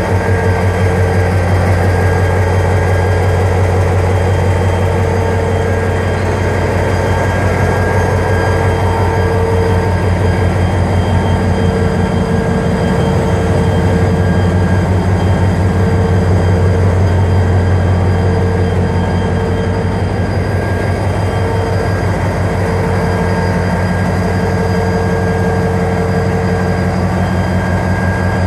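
EMD GT22CW diesel-electric locomotive idling while standing at the platform: a steady, heavy low rumble with an even pulse. A humming tone comes and goes every second or two.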